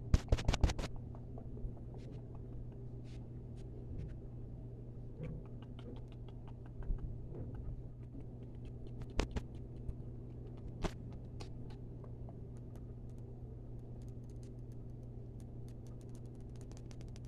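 Close-miked ASMR tapping and clicking. A quick run of sharp taps opens it, then scattered single clicks follow, and a fast light patter comes near the end, over a steady low hum.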